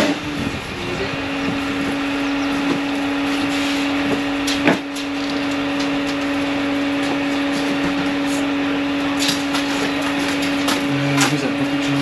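Steady engine hum of the ready-mix concrete wagon running during the pour, with a single sharp knock about five seconds in and a few lighter clicks and scrapes of tools and barrows near the end.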